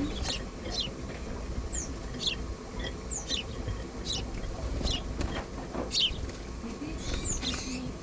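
Young sparrows chirping in a rehabilitation enclosure: repeated short, high chirps, each a quick downward sweep, about one or two a second, with a busier run of calls near the end.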